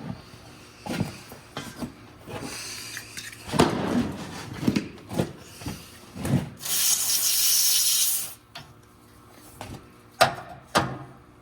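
Hand-work sounds of handling parts: rubbing and scraping with several short knocks, a steady hiss lasting about two seconds past the middle, and two sharp clicks near the end.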